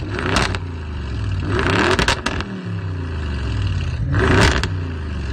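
A high-performance car engine revved three times from idle, each rev climbing quickly in pitch and dropping back to idle: just after the start, about two seconds in, and near the end.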